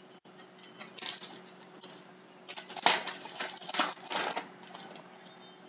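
Trading cards being handled and flipped through: a run of short papery clicks and rustles, busiest in the middle.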